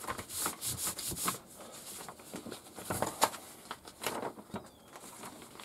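Large paper instruction sheet rustling and crackling as it is handled and folded over, in several short bursts.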